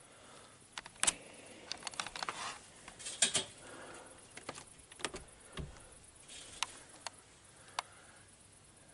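Irregular sharp clicks, clinks and light scuffs, about a dozen spread over several seconds, the loudest about a second in and around three seconds in: a person moving about and handling things while stepping into a dark building.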